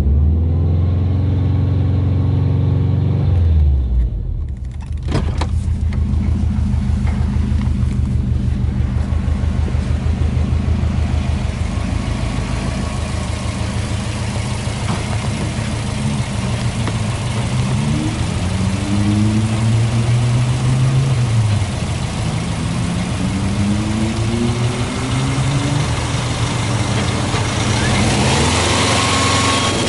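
Subaru Impreza WRX STi Version V's turbocharged flat-four engine idling steadily, heard first from inside the cabin. Then, beside the open engine bay, it is revved several times in the second half, each rev rising and falling back to idle.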